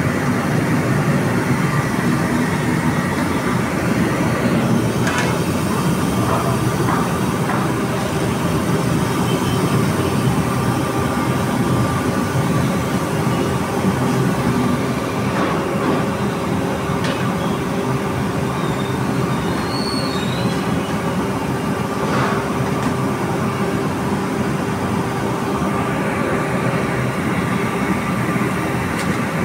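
Loud, steady roar of commercial kitchen burners under large pots of boiling sugar syrup, with a few short metal clinks.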